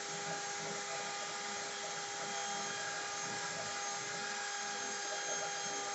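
CNC router spindle running steadily while cutting a sign, a constant whine with several steady tones over a hiss.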